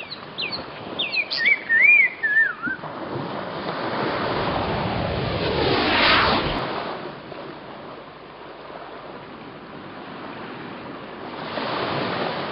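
A few quick whistling chirps that glide up and down, then a rushing, surf-like noise that swells to a peak about six seconds in and fades away, rising again near the end.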